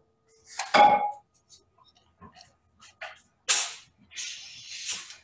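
Handling noises at a workbench. A short clink of a small object being set down is followed by crinkling and rustling of a large paper oar-blade template as it is handled.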